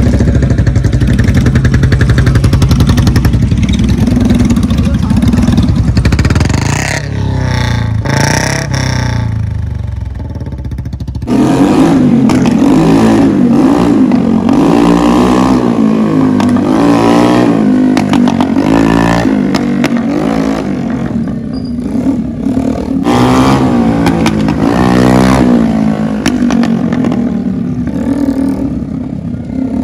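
A mini tractor's engine running steadily. Then, after a quieter stretch, about eleven seconds in a motorcycle engine starts revving and accelerating loudly, its pitch rising and falling again and again.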